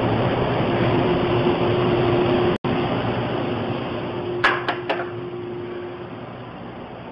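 A steady mechanical hum with a faint steady tone, like a motor or fan running, broken by a brief dropout partway through; three quick clicks follow about a second and a half later, and the hum then grows quieter.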